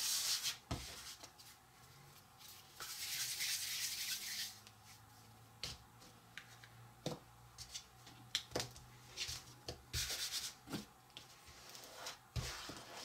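Handling sounds at a work surface: a few bursts of rubbing, each a second or two long, with light taps and clicks in between.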